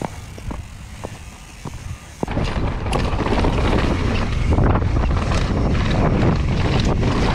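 Mountain bike rolling down a dry dirt trail. For the first two seconds it is fairly quiet, with scattered light clicks and rattles. About two seconds in it picks up speed, and a loud, steady rumble of tyres on loose dirt and wind on the camera microphone takes over, dotted with rattles from the bike.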